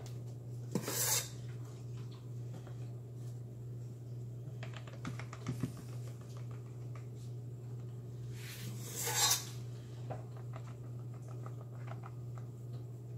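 Metal spoon scraping cookie dough off the side of a stainless steel mixing bowl, two short scrapes about a second in and about nine seconds in, with a few light clicks of the spoon between them. A steady low hum runs underneath.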